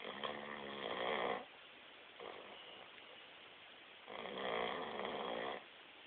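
A sleeping dog snoring loudly: two long snores about four seconds apart, each lasting about a second and a half, with a fainter breath between them.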